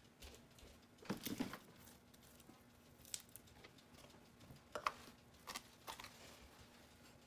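Faint scattered knocks and rustles of kitchen handling: a pot on a tiled counter is gripped with a cloth towel and shifted, with the loudest clicks about five seconds in. A faint steady hum runs underneath.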